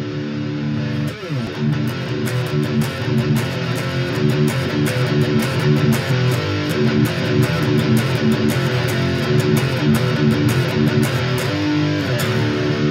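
Intro music led by guitar, with a steady beat that comes in about a second and a half in.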